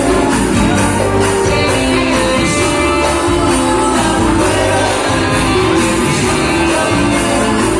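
Band music with a singer over a steady percussion beat.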